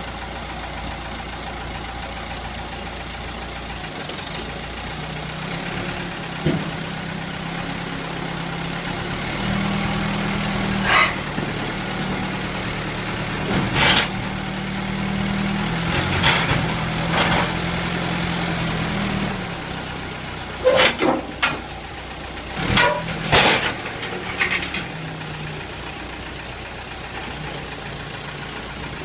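A 1990 JCB 3CX backhoe loader's four-cylinder diesel engine running. Its note rises and holds higher for about ten seconds before settling back. Sharp metallic clanks come throughout, several in quick succession a little after the middle.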